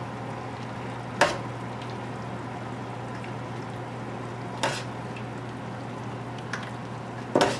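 Gravy sizzling and simmering in a stainless steel roasting pan over a gas burner, under a low steady hum. A metal basting ladle clinks against the pan three times, the last the loudest, as gravy is spooned over the turkey.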